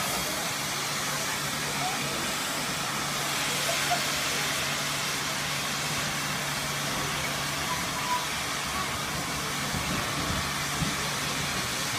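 Steam train pulling slowly out of a station, heard from on board: a steady hiss over a low steady hum, with voices from the platform.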